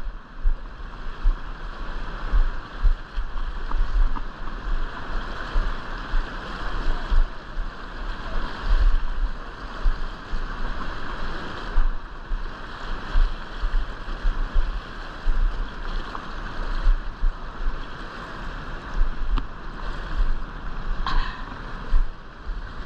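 Fast river rapids rushing past close by, a steady churning of white water, with gusts of wind buffeting the microphone.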